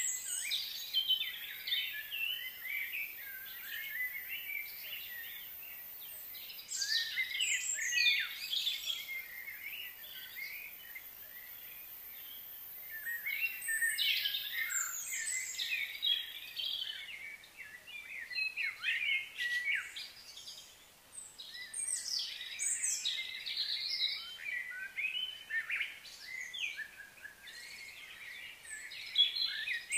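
Wild birds chirping and singing in bouts of quick calls and trills, with quieter stretches between them.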